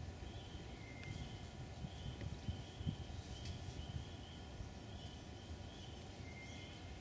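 Quiet outdoor ambience: short high-pitched chirps repeating about twice a second over a steady low rumble, with one faint click about three and a half seconds in.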